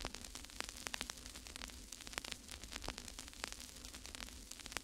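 Faint static: irregular crackles and clicks, several a second, over hiss and a low steady hum.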